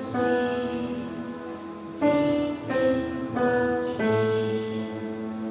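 Solo piano playing a slow melody of held notes, with new notes struck about two seconds in and again near four seconds.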